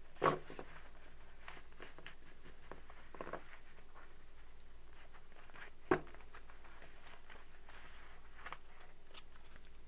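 A deck of tarot cards being gathered, shuffled and squared by hand. There are soft card rustles and two sharp snaps, one just after the start and one about six seconds in.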